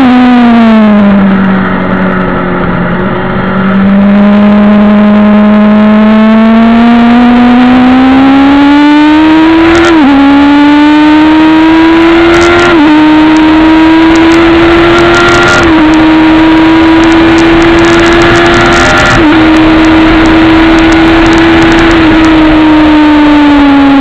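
Suzuki GSX-R750 SRAD inline-four engine heard on board at full throttle on a race track. Its pitch falls as the bike slows for a hairpin, then climbs hard as it accelerates away, with four quick upshifts about three seconds apart, and drops again near the end as the rider backs off.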